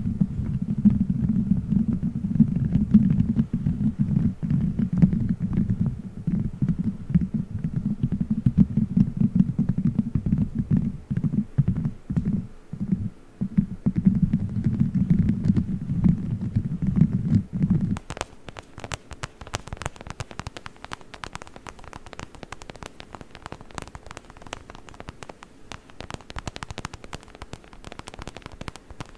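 A gummy-bear cover fitted over the microphone being squished and rubbed, heard as a muffled low rumble. A little over halfway through this stops suddenly and gives way to a quieter, crackly patter of tiny toy hands tapping and scratching on the microphone.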